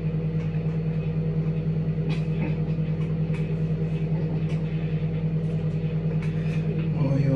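A steady low mechanical hum from a running household appliance, with a few faint clicks and rustles over it.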